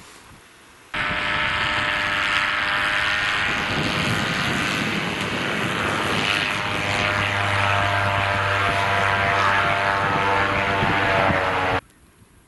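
Airboat's engine and air propeller running as it skims across snow-covered ice: a steady, loud drone that starts suddenly about a second in and cuts off near the end.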